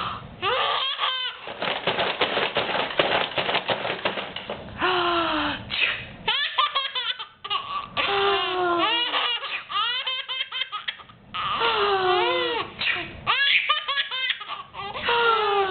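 Baby laughing hard in repeated belly-laugh fits, each a run of short pitched 'ha' calls sliding down in pitch, with breathy stretches and brief pauses between fits.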